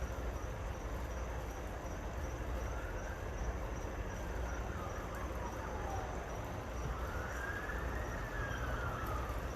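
Distant siren wailing, its pitch sliding slowly up and down over a few seconds per cycle, faint above a steady low rumble.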